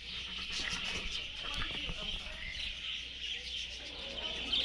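A flock of many small birds chirping and chattering at once in a continuous chorus.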